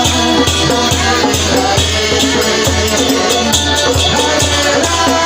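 Devotional kirtan music: a steady beat of small metal hand cymbals and a drum over sustained droning tones.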